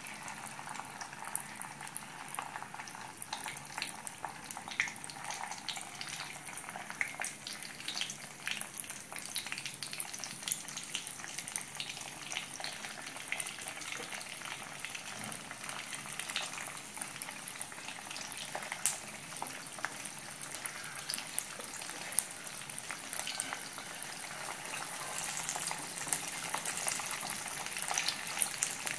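Masala-coated sardines shallow-frying in hot cooking oil with curry leaves in a wok: a steady sizzle with frequent small pops and crackles. The sizzle grows a little louder near the end.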